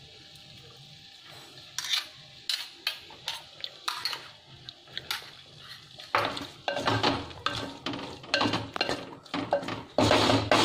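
Wooden spoon stirring wet chopped tomato and onion in an earthenware clay pot, knocking and scraping against the pot. Scattered knocks begin about two seconds in, and the stirring grows faster and louder from about six seconds.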